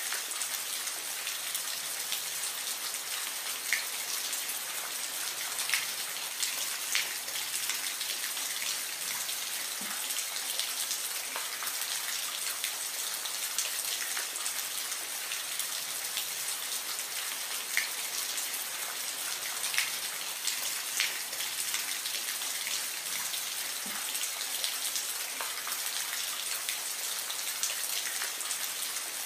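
Soft rain falling steadily: an even hiss with the clicks of single drops striking here and there.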